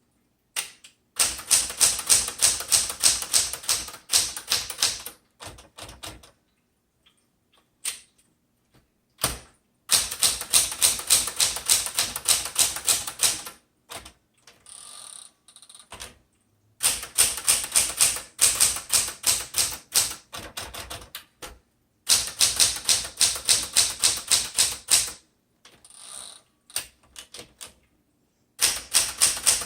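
1975 Smith Corona Classic 12 manual typewriter being typed on: several runs of rapid key and typebar strikes, each lasting a few seconds, with short pauses between the runs.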